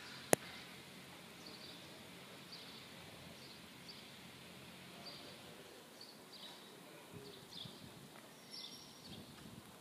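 Faint outdoor ambience with small birds chirping in short high notes throughout, and a single sharp click about a third of a second in.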